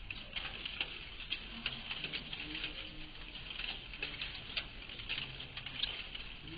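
Dense, irregular pattering and clicking over a steady hiss.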